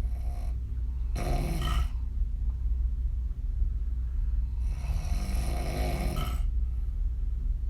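A woman snoring hard on her back with her mouth open: a short snoring breath about a second in and a longer one near five seconds in, over a steady low hum.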